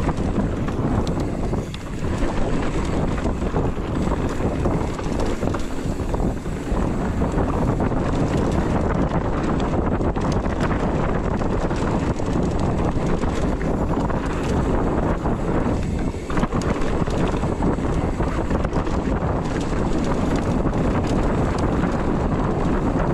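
Wind rushing over a handlebar-mounted action camera's microphone as a downhill mountain bike rolls fast down a dirt trail, over a steady rumble of knobby tyres on dirt and a continuous light rattle of the bike over rocks and roots.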